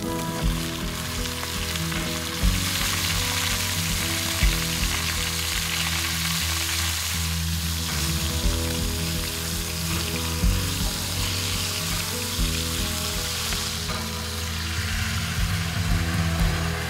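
Beef short ribs sizzling as they sear in a hot cast-iron Dutch oven over an open fire, a steady frying hiss.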